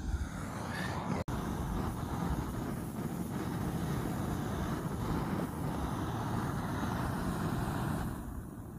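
Gas canister camping stove burning steadily under a pot of water at a rolling boil, with a brief drop-out about a second in; the sound dies away near the end.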